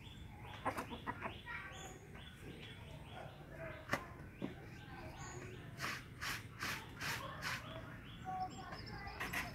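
Faint chicken-yard sounds: short chirps and clucks from the game-cock and hens, with scattered scuffs and taps, and a run of quick rasping strokes about six seconds in.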